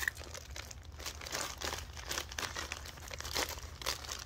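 Clear plastic bag crinkling in quick, irregular crackles as a notebook is worked out of it by hand.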